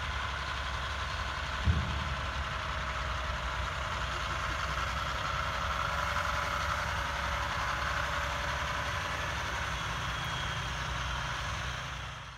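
Heavy rotator tow truck's diesel engine running steadily as the truck drives slowly, heard from a distance. There is a single short thump about two seconds in.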